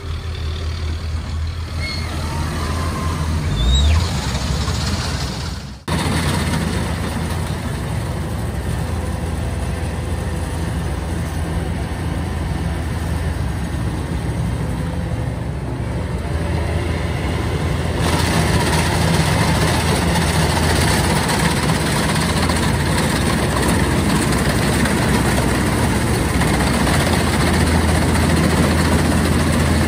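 Kubota DC-105X rice combine harvester's diesel engine running steadily under load while it works through a muddy paddy. The sound breaks off abruptly about six seconds in, then runs on steady and a little louder in the last third.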